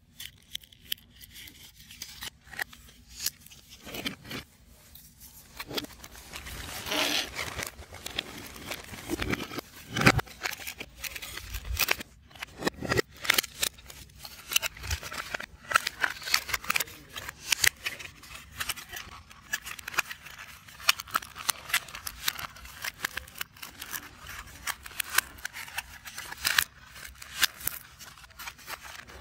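Hands working 3D puzzle pieces: a steady run of sharp clicks and snaps as parts are pressed out and fitted together, with rubbing and scraping between them and a longer scrape about seven seconds in.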